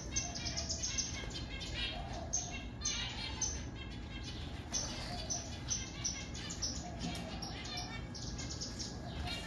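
Zebra finches chirping in an aviary: a string of short, high calls, several a second, from a number of birds over faint steady background noise.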